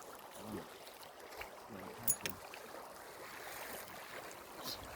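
Faint steady outdoor hiss of moving air or water, with faint distant voices and a few light clicks.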